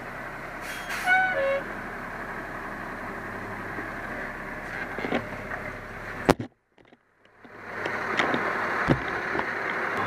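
Fire engine's engine running steadily, heard from inside the cab. A brief high-pitched tone sounds about a second in. A sharp knock comes a little past the middle, then the sound cuts out for about a second before the engine noise returns.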